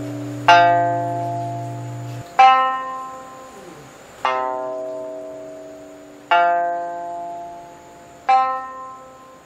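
Yushigi-wood sanshin plucked one note at a time, five notes about two seconds apart, each left to ring and fade away. A low steady hum under the first note stops abruptly about two seconds in.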